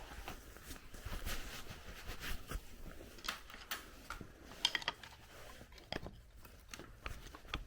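Screwdriver prying an axle output shaft out of a Toyota Highlander rear differential: scattered metal-on-metal scraping and clicking, with a few short ringing clinks about halfway through.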